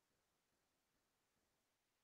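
Near silence: the microphone is muted or picks up nothing but a faint noise floor.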